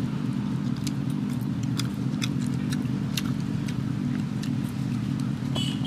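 A steady low motor rumble runs throughout, with scattered sharp clicks and smacks from eating with the hands. A high steady tone comes in near the end.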